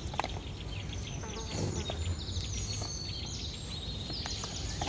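Birds chirping repeatedly in short, high calls, over faint rustling and soft clicks of soil being pressed by hand into a plastic grow bag.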